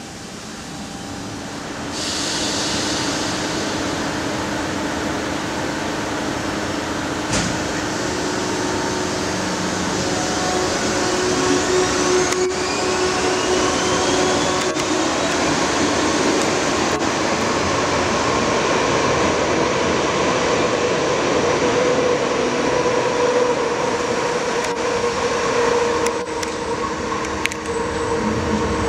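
Euskotren series 200 electric train at the platform: a burst of air hiss about two seconds in and a sharp knock around seven seconds, then the train pulls away with the whine of its motors rising in pitch as it gathers speed, over a steady rumble.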